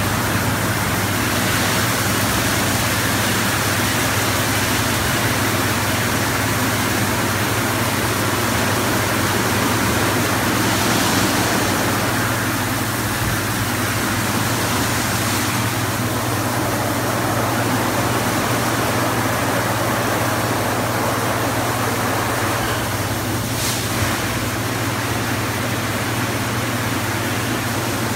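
Automatic rollover car wash gantry running over a car: rotating brushes scrubbing and water spraying over a steady motor hum. A single brief knock sounds near the end.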